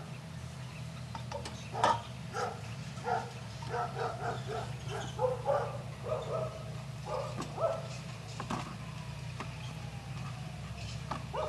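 Belgian Malinois puppy whining and yipping in a run of short, high calls, a couple a second, which stop about three-quarters of the way through, with one more call near the end.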